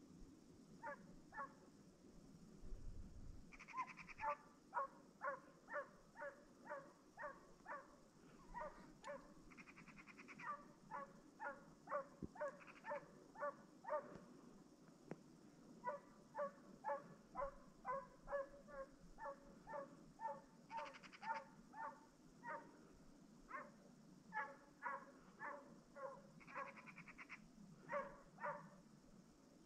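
Russian hound baying faintly, in runs of short, evenly spaced yelps about two a second, broken by several longer drawn-out calls. This is a hound giving tongue as it runs a hare's trail.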